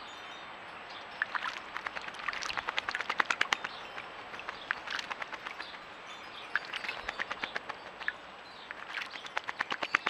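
A blackbird bathing in a shallow bird bath, flicking and splashing water with its wings in several quick flurries of rapid splashes, the longest in the first half and more near the end.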